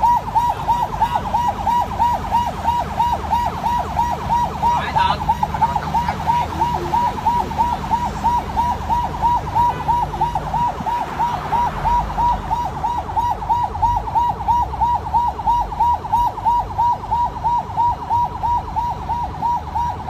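Ambulance siren in a fast yelp, its pitch sweeping up and down about two to three times a second without a break, over a low rumble of vehicle engines and tyres.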